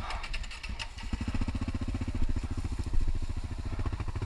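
Off-road motorcycle engine running steadily close by with an even, rapid beat that comes in clearly about a second in, after a few clicks.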